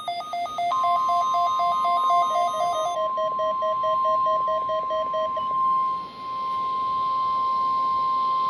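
NOAA Weather Radio alert tones during a weekly test. A receiver's alarm warbles rapidly between two pitches until about three seconds in. The steady single-pitch weather radio warning alarm tone starts just under a second in and holds. A run of quick beeps follows until about five seconds in, and radio hiss rises beneath.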